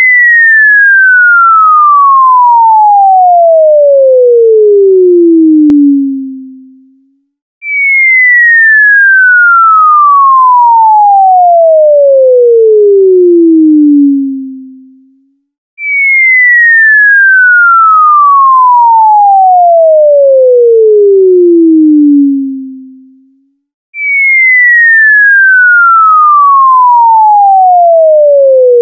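Cartoon falling-whistle sound effect: a single clean tone gliding steadily down from high to low over about six seconds and fading out at the bottom. It repeats four times with short gaps, and the last glide is cut off partway down.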